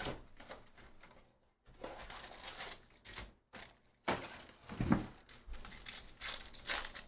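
Cellophane shrink-wrap crinkling and tearing as it is stripped from a trading-card hobby box, then a foil card pack being torn open, in irregular bursts of rustling. A dull thump about five seconds in.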